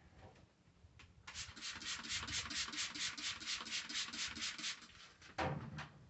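Rag scrubbing the inside of a microwave, a fast back-and-forth rub at about seven strokes a second for three or four seconds. A short, louder low sound comes near the end.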